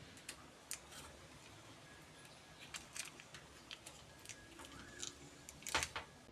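Scattered light clicks and taps of small metal parts being handled, with a louder cluster of clicks a little before the end, as the old PC case is taken apart.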